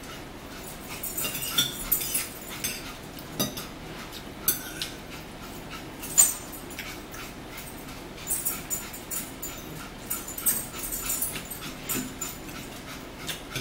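A pet dog whimpering now and then, with forks clicking and scraping on plates.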